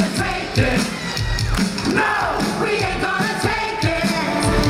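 Live stage-show band music: a drum kit keeping a beat under electric guitar and a singing voice.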